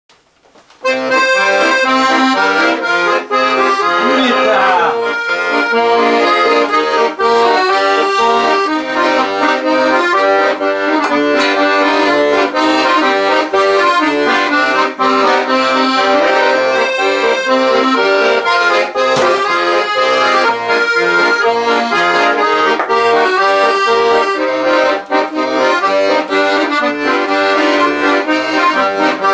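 Ballone Burini Cantus 34a piano accordion playing a lively tune, with acoustic guitar accompaniment and a steady, rhythmic bass line; the music starts about a second in. A brief falling swoop cuts across the music about four seconds in.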